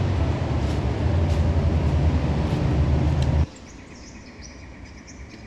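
A loud, steady low rumble cuts off abruptly about three and a half seconds in, giving way to faint, scattered bird chirps.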